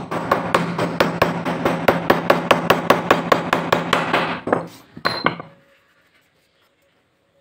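Rapid metal-on-metal hammer taps, about six a second, with a hand hammer on a blue-handled punch held upright against the planer part to drive a bearing. A steady low ring carries under the strikes. The run stops a little past halfway, and two last taps come shortly after.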